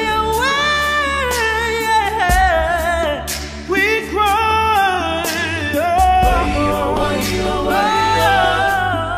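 Background music: a slow song with singing voices over a low, sustained bass.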